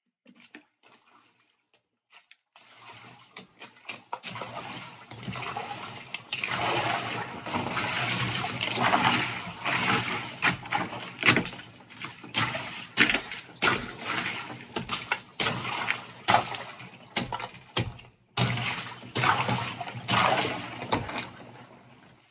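Icy water sloshing and chunks of ice knocking and clinking as a wooden paddle stirs and breaks up the ice in a chest-freezer ice bath. Faint at first, it becomes a steady churning after about two seconds, full of sharp knocks, with a brief pause near the end.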